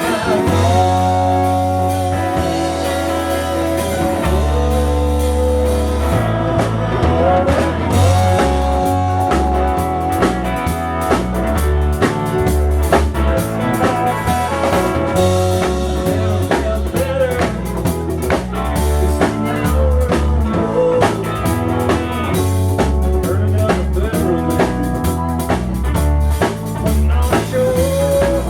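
A rock band playing a blues-rock song: drums, bass and guitar with a wavering sustained melody line, likely a singing voice.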